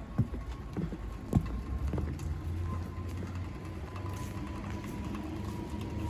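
A steady low rumble with a faint high tone that slowly drops in pitch, and a few short knocks in the first two seconds.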